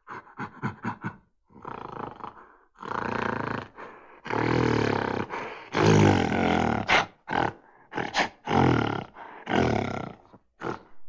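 Lion roaring: a quick run of short grunts, then a series of long, deep roars that are loudest about six seconds in, breaking into shorter grunting calls near the end.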